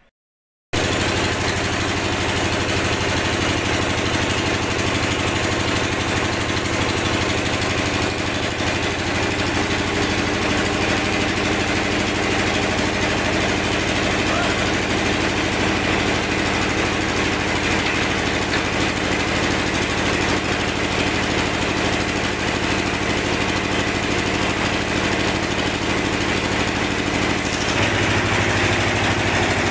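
Engine of a water-well boring rig running steadily while it drills a water bore, with its note shifting slightly near the end.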